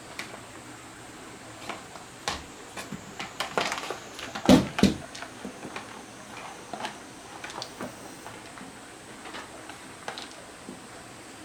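Scattered clicks and knocks of hard parts being handled, as during work on a Koshin GT-3S battery-powered sprayer, with two louder knocks close together about halfway through.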